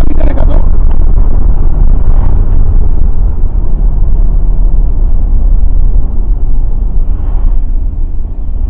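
Mercedes CLK 63 AMG's 6.2-litre V8 running with the car under way on the road, a steady deep rumble.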